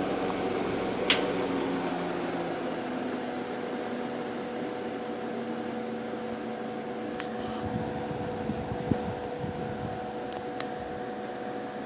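1958 General Electric twin window fan running on its low setting: a steady motor hum with rushing air that slowly eases off over the first few seconds as the blades slow to low speed. A sharp click about a second in.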